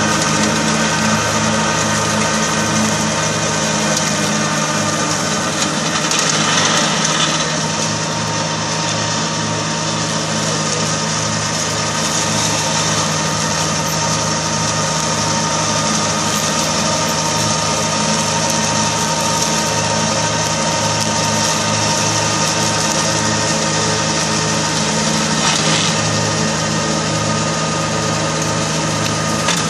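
Kubota compact tractor's diesel engine running steadily under load while it drives a PTO-powered rotary brush mower cutting dense weeds, with a steady whir and hiss from the spinning blades. Short louder bursts of noise about six seconds in and again near the end.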